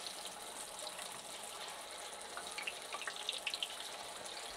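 Masala-coated fish pieces deep-frying in well-heated oil in a kadhai: a steady sizzle with scattered crackles, busier in the second half.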